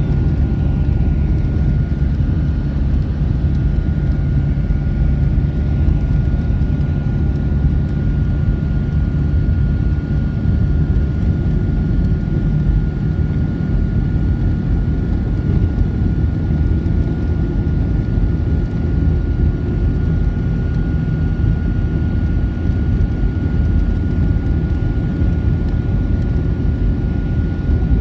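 Steady low rumble of a vehicle driving at speed, its engine and tyre noise running without change, with a faint steady high whine held throughout.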